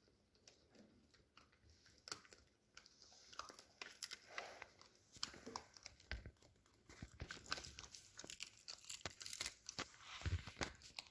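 Small dog chewing a dried lamb stomach chew: repeated faint crunches and tearing bites, busiest through the middle of the clip. The chew is hard and slow going, but she is managing it.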